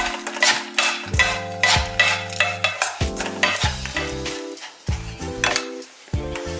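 Crisp stir-fried dried anchovies being tossed in a nonstick wok with a wooden spoon and a metal spoon: dry scraping, rustling strokes about twice a second. Background music plays underneath.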